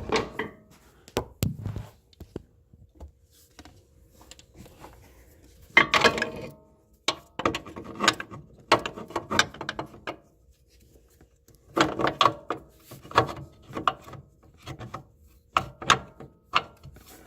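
Clunks and knocks of metal parts and hand tools as a new transmission mount is worked back into place, coming in several short bursts of clatter with pauses between.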